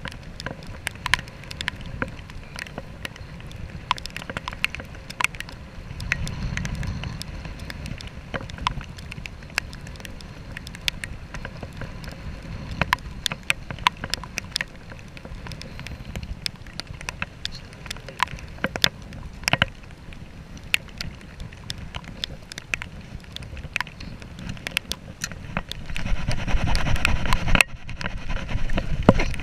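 Wind and sea noise on a small fishing boat in rough water, with irregular sharp ticks and knocks throughout. The rush grows louder near the end.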